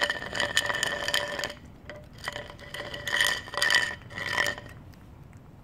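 Cat eating wet food from a plastic dish: two spells of wet, clicking chewing and lip-smacking, the first about a second and a half long, the second about two and a half seconds, with a faint steady tone running through them.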